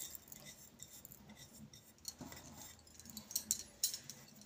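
Faint, light clinks and clicks of dishes: a small ceramic bowl handled over a glass mixing bowl, with a few sharp ticks near the end.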